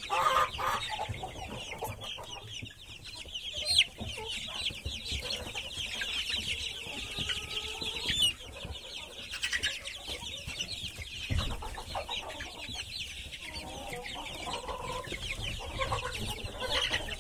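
A large flock of four-week-old chicks peeping together, many short high calls overlapping in a continuous chorus, with a few louder single calls standing out.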